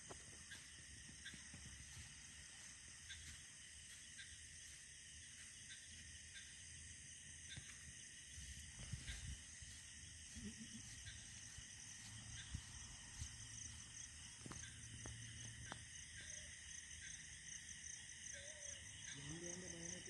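Faint, steady chorus of night insects, several high continuous tones, with a few soft clicks scattered through it.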